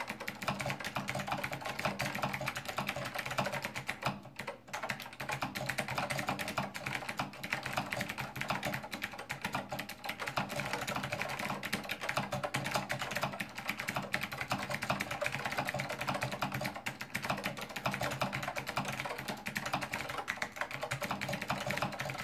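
Fast typing test, about 95 words per minute, on a Monterey K2AX keyboard with clicky SKCM Blue Alps switches and thin doubleshot ABS keycaps. It is a dense, continuous run of sharp key clicks, with a brief pause about four seconds in.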